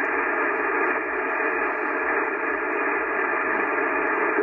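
Steady, thin hiss from a VHF amateur radio receiver with no station coming through: band-limited receiver noise between contest contacts.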